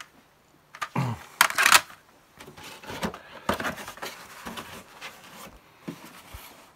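Paper rustling as a software manual and its packaging are handled: a few loud, sharp rustles between one and two seconds in, then softer, continuous rustling.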